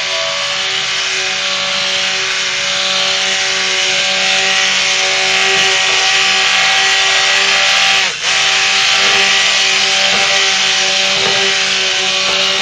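Stick blender running on high while it is submerged in hot-process soap batter, emulsifying the lye solution and oils that have not yet fully blended. The motor gives a steady whine that cuts out for a moment about eight seconds in and then starts again.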